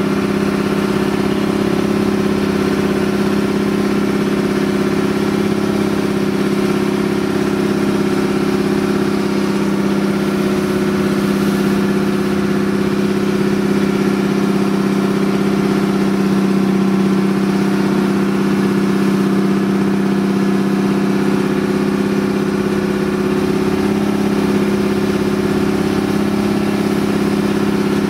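Outrigger boat's engine running steadily under way, a constant low hum with no change in speed.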